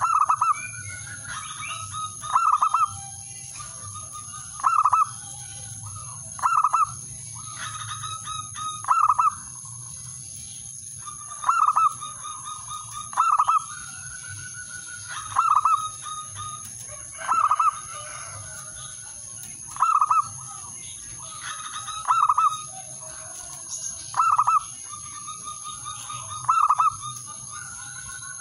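Male zebra dove (perkutut/merbok) singing its cooing song, with soft rolling trills and a loud, ringing note about every two seconds. A steady high-pitched whine runs beneath it.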